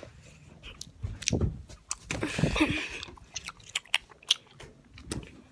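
A child chewing gum close to the microphone: irregular wet clicks and smacks of the mouth.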